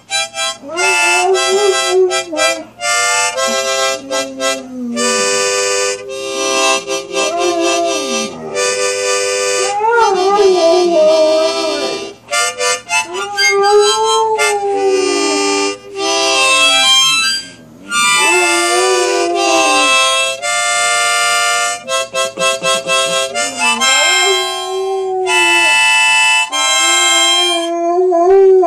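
A harmonica played in held chords while a hound dog howls along with it. The dog's howls slide up and down in pitch against the steady reed notes, and the harmonica stops for brief gaps now and then.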